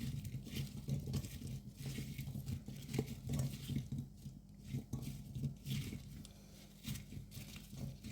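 Chunky raw vegetables (carrots, celery, parsnips, garlic and onions) being mixed in a tray with melted butter and spices: a run of soft, irregular squelching and rustling over a low steady hum.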